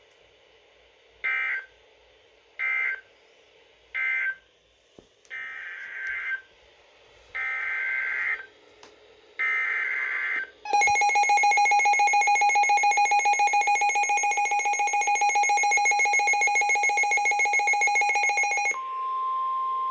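Emergency Alert System data tones. First come three short buzzing end-of-message bursts, then three longer header bursts announcing the next warning. About 11 s in the loud, finely pulsing EAS attention signal starts and holds for about eight seconds, then changes to a single steady tone near the end.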